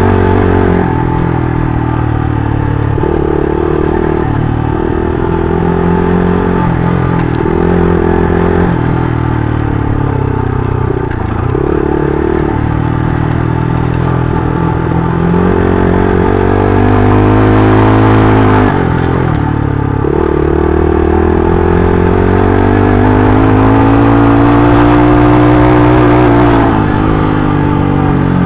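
Mitt 278 125cc scrambler's single-cylinder engine, ridden off-road. The engine note keeps rising and falling with the throttle, climbs steadily and then drops suddenly about two-thirds through, and climbs again before falling away near the end.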